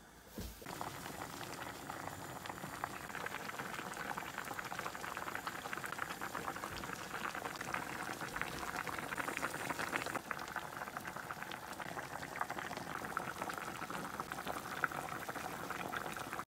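A pot of gamjatang, pork-bone and potato soup, boiling hard: a dense, steady bubbling and crackling that starts about half a second in and keeps on.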